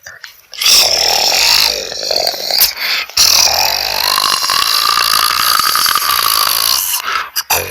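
Koala bellowing: a loud, continuous run of deep grunting calls that starts about half a second in, with a brief break about three seconds in.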